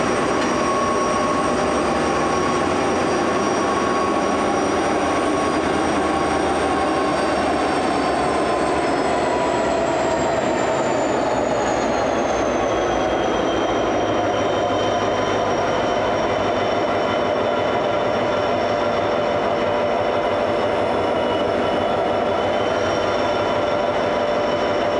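Freight train's diesel locomotives, SCT008 and LDP003, running slowly past as the train slows to a stop on the loop, with a steady rumble and several high whining tones that drop in pitch about halfway through as the train loses speed.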